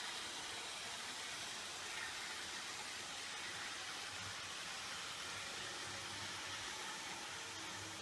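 Model steam locomotive running on a model railway, heard as a steady hiss.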